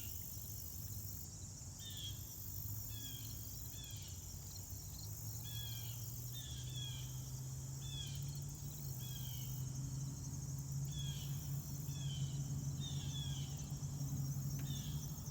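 Steady high-pitched insect chorus, with a bird giving short downward-sliding chirps roughly once a second, over a low steady hum that grows a little louder about halfway through.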